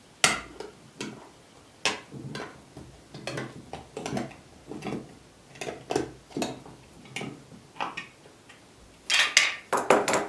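Metal lid of a glass canning jar being worked open with a hand-held metal opener: a series of short metal clicks and scrapes, roughly one or two a second, with a louder cluster of clicks near the end as the lid comes free.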